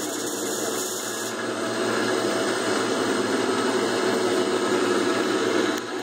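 Metal lathe running with a drill in the tailstock chuck cutting into the end of a spinning metal workpiece and throwing off long stringy chips. A steady motor-and-cutting noise, getting slightly louder as the cut goes on, with a brief dip near the end.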